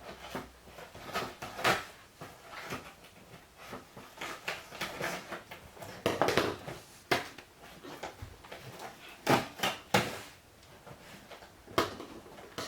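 Cardboard gift box being opened by hand: irregular rustling and scraping of cardboard and packaging, with several sharper knocks and clicks, the loudest a little past the middle and near the end.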